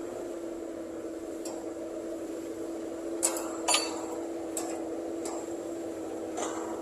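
A small motor whining steadily at one pitch, with several sharp clicks and clacks of hard pieces, the loudest two a little past halfway.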